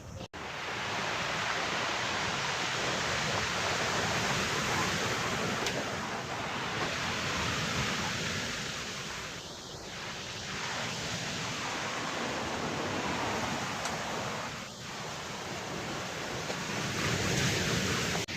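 Sea surf and wind making a steady rushing noise that swells and eases a few times, with wind buffeting the microphone.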